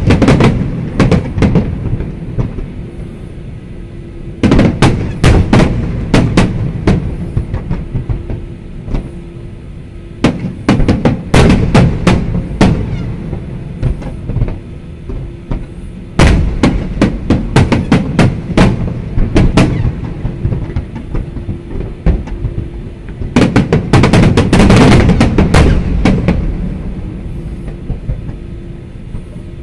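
Aerial fireworks display: volleys of shell bursts going off in rapid clusters of bangs a few seconds long, about every six seconds, with a fading low rumble in the short lulls between.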